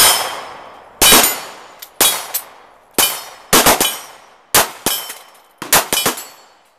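A series of sharp, shot-like metallic bangs, about a dozen in uneven clusters, each with a ringing tail that fades over up to a second.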